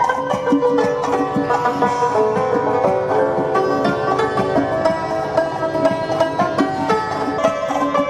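Background music: a plucked string instrument playing a quick, rhythmic melody.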